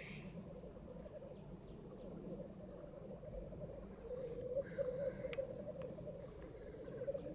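Black grouse lekking: a continuous bubbling, cooing rookoo chorus, with a short hissing call at the start and another about four and a half seconds in. A run of faint high notes comes about halfway through.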